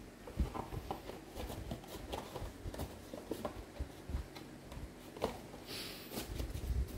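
Light handling noise of watches in plastic bags: scattered small clicks and taps, a short crinkle of plastic about six seconds in, and a few soft low thumps near the end.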